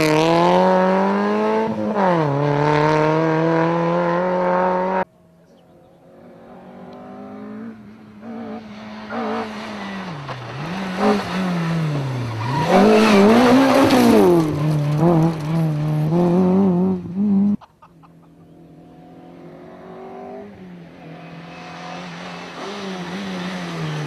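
Small front-wheel-drive rally cars, among them Peugeot 106s, driven flat out one after another: engines revving hard and climbing through the gears, with throttle lifts and quick blips on downshifts for the bends. The sound drops away suddenly about five seconds in and again about eighteen seconds in, each time followed by the next car building up as it comes closer.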